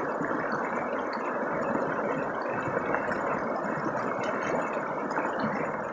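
Shallow, rocky stream rushing steadily over stones.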